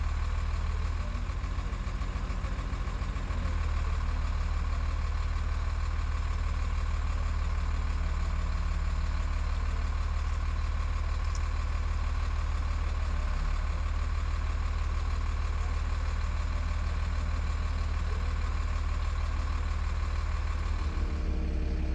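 Crane truck's diesel engine running steadily, a deep unbroken engine note that shifts slightly about three seconds in.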